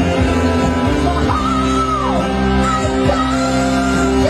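Women singing a high-pitched, shrill chorus into microphones over live band accompaniment, holding long high notes, one of which slides down about two seconds in.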